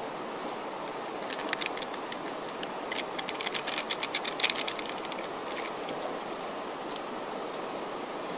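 Plastic sachet of powdered drink mix crackling as it is shaken and squeezed empty over a glass: a few crackles about a second in, then a dense run of quick crackles in the middle. A steady rushing background noise runs underneath.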